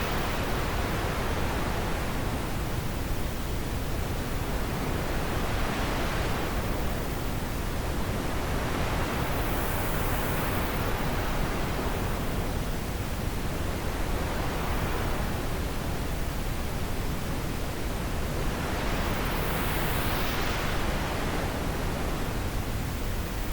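Wind blowing steadily with a dense rushing hiss that swells and eases in slow gusts every three to four seconds.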